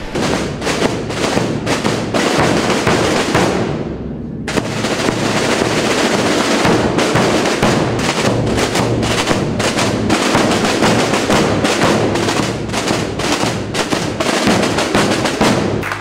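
A massed corps of Calanda Holy Week drums and bass drums (tambores y bombos) playing together, a dense, continuous rolling of rapid strokes with deep bass-drum beats underneath.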